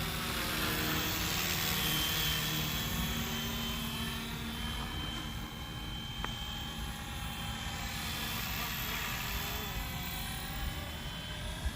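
FlyWing FW450 V3 RC helicopter flying: a continuous whirr of the rotor blades with a faint motor whine, its tone sweeping gently as the helicopter moves about. There is one light click about six seconds in.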